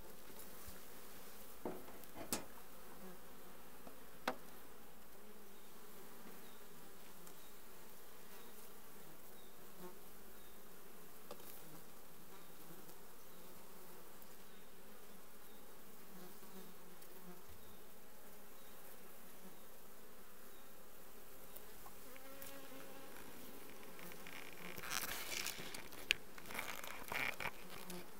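Honeybees buzzing steadily around an open hive. A few sharp clicks come in the first few seconds, and near the end there is a short spell of rustling with a sharp knock.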